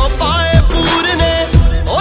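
Background music: a Punjabi song with a voice singing over a steady beat of deep drum hits, about two a second.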